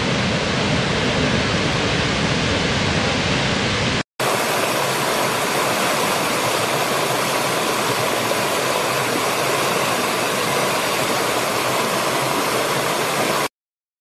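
A large waterfall pouring, a steady deep rush of water that cuts off abruptly about four seconds in. After a brief gap, a small rocky stream rushing, brighter and with less bass, which stops suddenly shortly before the end.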